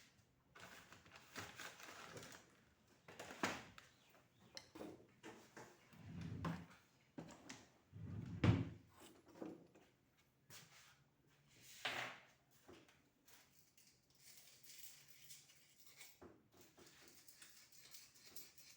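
Handling noises as a small exhaust fan motor is worked on by hand: scattered light knocks and scrapes of its parts, with three sharper knocks spread through.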